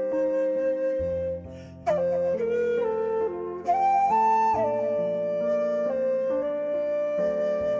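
Slow background music: a melody of long held notes over sustained chords, changing note every second or so, with a sharp attack about two seconds in and again near four seconds in.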